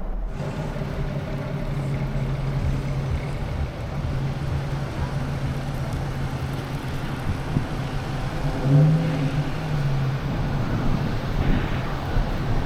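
Jeep engine running steadily, with a brief rise in engine pitch about nine seconds in as it speeds up.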